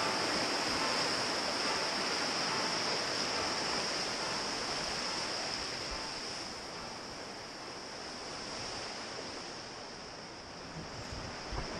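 River rapids rushing over rocks: a steady, full-range rush of white water that gradually gets quieter over the second half. A short low bump comes near the end.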